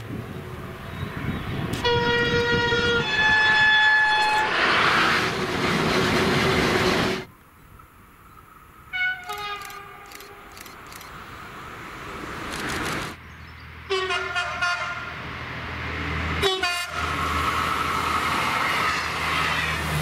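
French trains sounding their horns in several separate takes: a two-note horn, a low note then a higher one, followed by the loud rush of a train passing; then shorter horn blasts from other approaching trains, ending over a steady low rumble.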